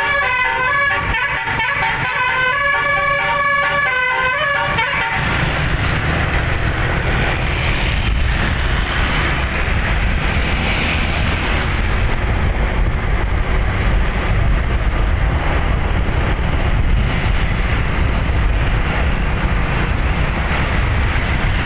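A bus's Basuri 'telolet' musical air horn playing a tune of several horn trumpets, stepping from note to note, that stops about five seconds in. After it comes a steady rumble of engine, road and wind noise from moving traffic.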